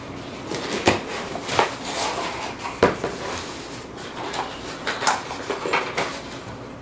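Cardboard shipping box being opened and handled, the flaps and a cardboard packing insert rustling and scraping, with several sharp knocks and taps.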